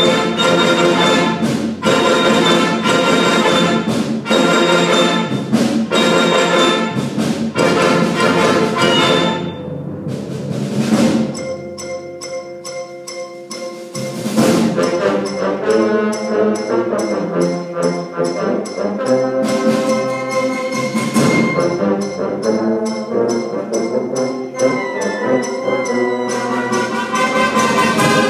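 High school concert band of brass, woodwinds and percussion playing a driving wind-band piece. It opens with loud, repeated accented full-band chords, drops to softer held chords about ten seconds in with cymbal crashes, then builds again.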